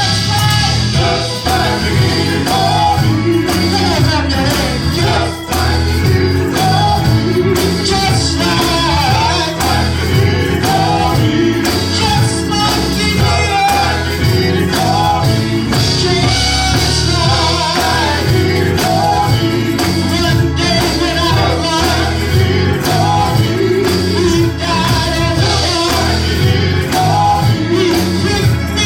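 Live gospel worship music: singers with a band, bass and drums keeping a steady beat.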